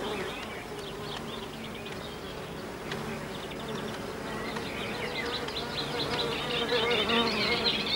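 Insect wings buzzing steadily, growing somewhat louder toward the end.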